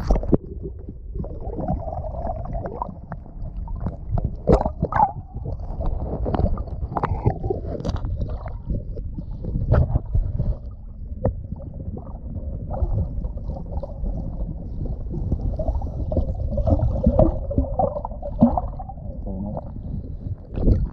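Muffled underwater sound through a submerged camera: water churning and gurgling, with scattered sharp knocks, as a flounder gig's pole is pushed down through the water toward a flounder on the sandy bottom.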